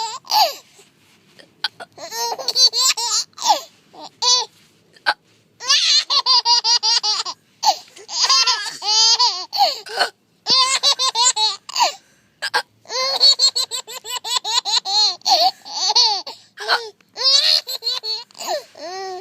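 Baby laughing in repeated bouts of rapid, high-pitched giggles, with short fake hiccup noises in the pauses that set off each bout.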